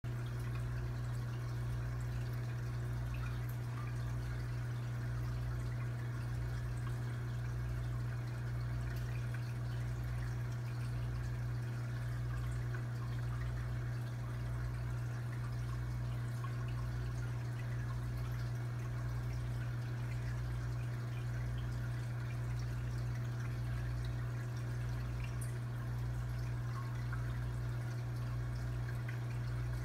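Air-driven sponge filter in a small aquarium, bubbling and trickling steadily as air rises up its lift tube, over a steady low hum.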